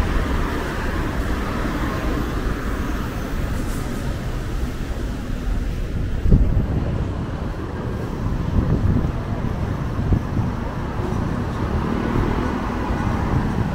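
Road traffic on a busy multi-lane city street, a steady rumble of passing cars, with a sharp low thump about six seconds in.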